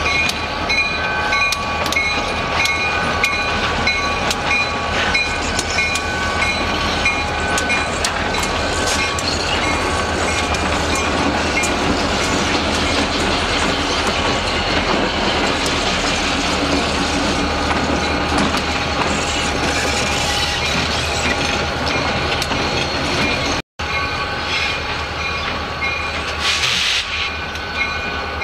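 Two EMD SD40-type diesel locomotives running light at slow speed. There is a steady engine rumble, with a high whine held over it and wheels clicking over the rail joints. A short hiss comes near the end.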